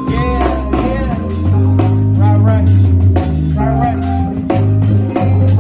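Live band playing a hip hop song: electric guitar, drum kit, keyboard and a heavy, steady bass line.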